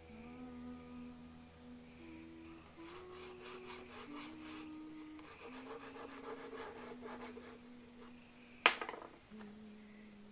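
Soft pastel and conté being rubbed and stroked onto paper by hand, a dry rubbing with a quick run of strokes in the first half, over slow music with long held notes. A single sharp knock near the end is the loudest sound.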